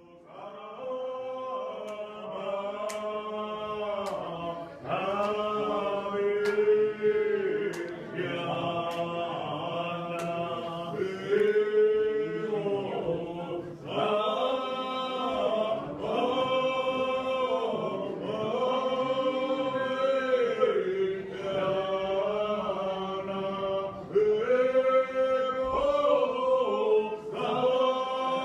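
A church congregation singing a hymn in the Muscogee Creek language, many voices together in long held notes and phrases. It comes in over the first second.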